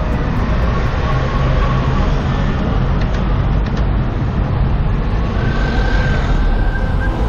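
Steady rushing noise with a heavy low rumble: wind and rolling noise of a bicycle ride picked up by the camera.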